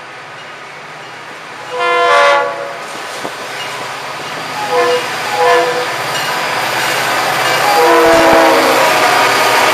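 Diesel freight locomotives approaching and passing, the lead unit sounding its air horn: one long blast, two short ones, then a final long one. Under the horn, the engine and wheel rumble grows steadily louder as the locomotives draw level.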